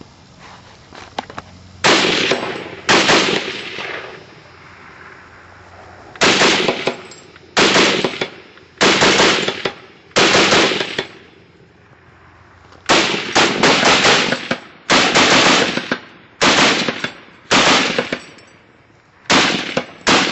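Semi-automatic Browning 1919A4 firing about eleven loud groups of shots, roughly one to two seconds apart, with two longer pauses between them. Each report rings out briefly.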